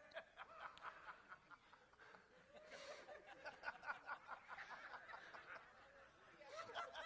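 Faint laughter, quick repeated chuckling and giggling, heard from well off the microphone.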